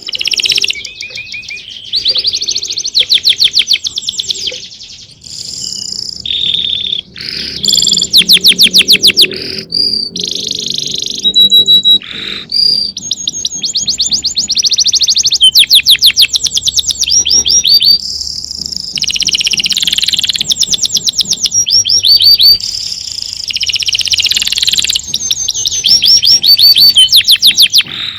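Songbird singing: loud, high-pitched song of rapid trills and chirps, one phrase after another with short breaks between them.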